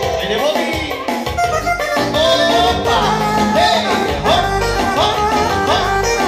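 Loud dance music with a steady beat, its melody line sliding up and down between notes.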